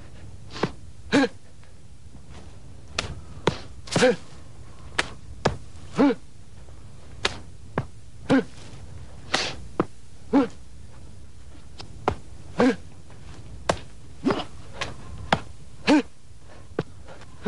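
A Baji quan practitioner's short, sharp voiced exhalations as he issues strikes, roughly one every one to two seconds. Quick sharp knocks fall in between.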